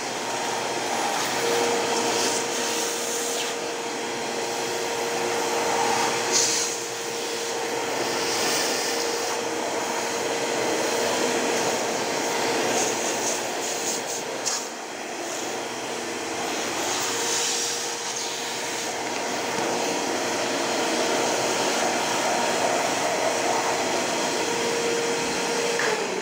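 Multipro vacuum cleaner running steadily with a whine, its hose nozzle sucking dust and lint off a sewing machine's motor pulley and belt. Its sound dips briefly twice as the nozzle is moved.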